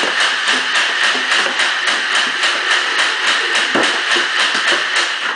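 Nerf blaster firing a continuous rapid burst: a steady motor whine with quick dart shots about five a second, cutting off near the end as it runs empty.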